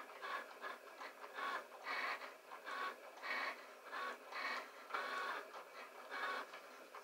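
Desktop electronic vinyl cutter cutting a stencil: its motors whir in short, uneven bursts, about one or two a second, as the blade carriage moves back and forth and the mat feeds.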